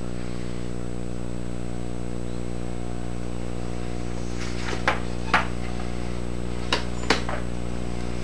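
A steady low hum runs throughout. In the second half come a few light clicks and knocks from a wooden gage block case being handled and moved on the surface plate.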